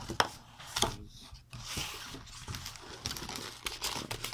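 Cardboard box being handled and opened: the lid scraping open and a few sharp taps and clicks of cardboard against cardboard and hands.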